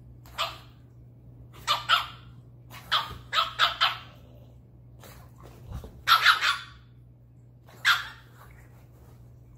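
Dog barking in play: short, high-pitched barks, some single and some in quick runs of two to four, about a dozen in all.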